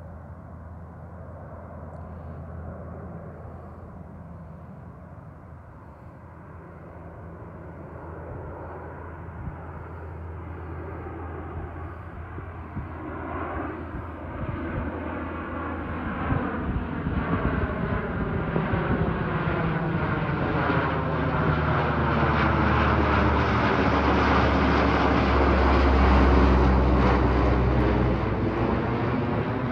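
Lockheed C-130 Hercules four-engine turboprop flying over, growing steadily louder as it approaches and loudest a few seconds before the end. It has a low propeller hum and a sweeping, phasing tone as it passes overhead.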